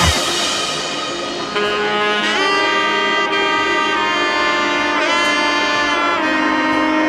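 Background music: the drums drop out and a melodic lead line plays long held notes with pitch slides between them.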